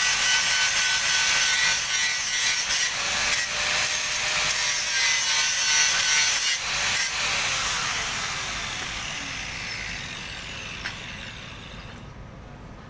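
Angle grinder grinding a steel padding plate, a loud even hiss with short breaks about three and six and a half seconds in. The sound then fades away steadily over the last five seconds or so.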